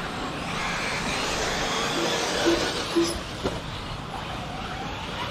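Radio-controlled off-road race cars running on a dirt track: a steady wash of motor whine and tyre noise from the cars, with three short beeps near the middle.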